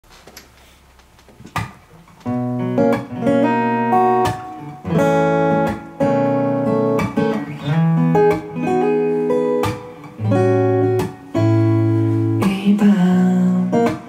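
Steel-string acoustic guitar playing a chord intro, struck in repeated phrases, coming in about two seconds in after a quiet start.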